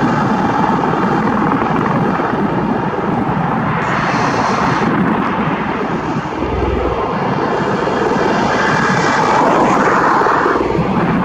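Bell Boeing CV-22 Osprey tiltrotor flying low in helicopter mode, nacelles upright: the loud, steady noise of its two proprotors and turboshaft engines.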